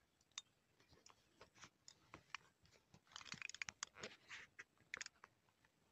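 Near silence broken by faint, scattered clicks and scratchy crackles, thickest from about three to five seconds in.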